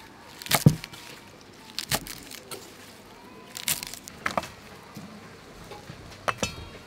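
Large kitchen knife chopping leafy green vegetable stalks on a wooden chopping block: sharp knocks of the blade striking the wood, spaced irregularly, several in quick pairs.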